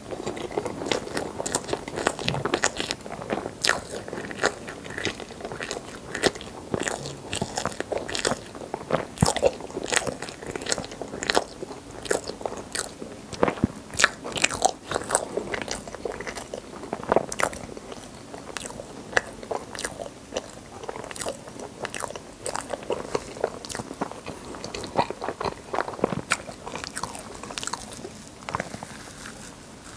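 Close-up chewing of soft, cream-layered rainbow crepe cake. Many irregular sharp mouth smacks and clicks run through it, a little sparser near the end.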